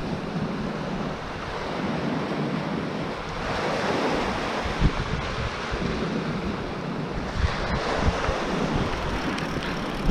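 Surf washing onto the beach, swelling louder twice, with wind buffeting the microphone.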